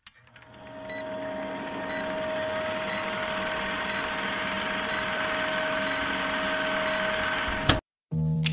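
Old film projector sound effect for a countdown leader: a steady whirring clatter with a faint hum and a short blip once a second. It cuts off suddenly near the end, and music starts just after.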